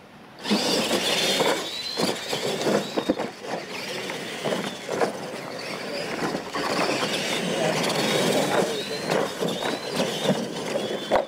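Two R/C monster trucks launching about half a second in and racing over dirt: a high motor and gear whine that rises and falls, over tyres scrabbling on the dirt, with scattered knocks as the trucks bounce.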